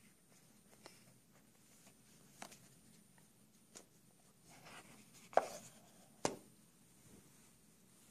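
Handling noise from an iPhone 6 and its cardboard box being moved by hand: scattered light taps and clicks with a brief rustle, the loudest knock a little past halfway and a sharp click just after it.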